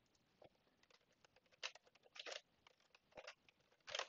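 Faint computer keyboard keystrokes: scattered, irregular taps, a little denser towards the end.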